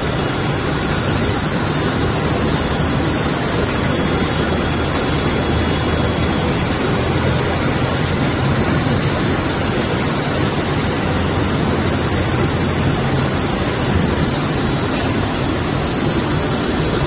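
Steady, loud machinery noise from textile mill equipment running: a continuous even rush with a low hum underneath and no distinct individual strokes or clicks.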